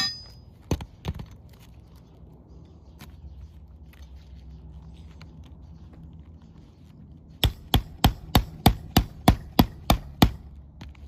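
Hammer driving a roofing nail into an asphalt shingle: a ringing metal clink and two sharp taps at the start, then about ten quick, even blows near the end.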